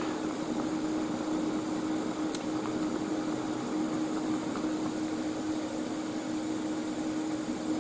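Steady hum with an even hiss from a TIG welding set running during a weld, keeping on unchanged after the arc goes out; one faint tick about two and a half seconds in.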